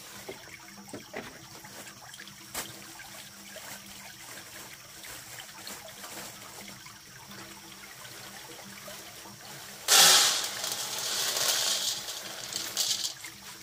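Water trickling quietly with small splashes. About ten seconds in, a sudden louder rush of splashing water lasts about three seconds, then eases off.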